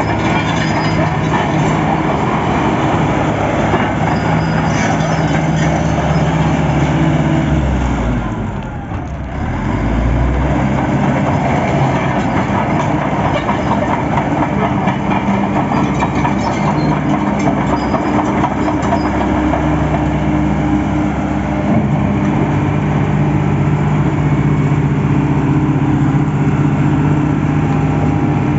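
Caterpillar D5H bulldozer's diesel engine running under a working test, with a steady engine note and a fast metallic clatter. About eight seconds in, the engine note drops briefly and then comes back up.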